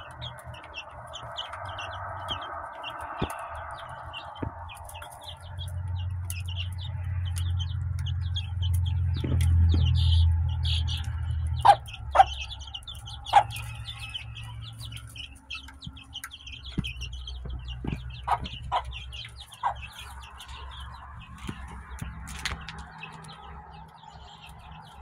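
Young layer chicks peeping steadily while they feed, with several short, loud chicken clucks in the middle stretch. A low rumble swells and fades before the clucks.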